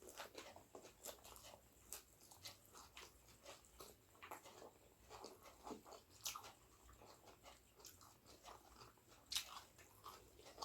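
Faint chewing of a mouthful of food, with scattered small wet mouth clicks and smacks several times a second.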